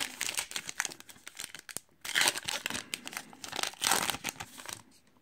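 A Minor League baseball card pack's wrapper being torn open and crinkled by hand, with two louder rips of the wrapper about two and four seconds in.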